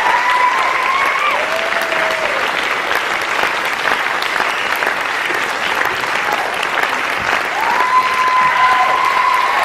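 Theatre audience applauding steadily at the end of a show. Long held calls from the crowd rise above the clapping near the start and again near the end.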